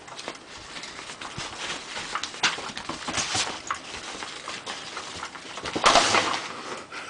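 Kitten playing with a cat toy: a run of quick light taps and scratches, with a louder, longer rustling scuffle about six seconds in.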